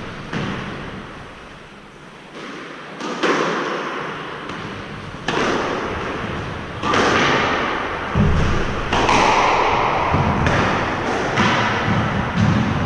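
Squash rally: the ball is struck by racquets and smacks off the court walls about every one to two seconds. Each hit echoes in the enclosed court.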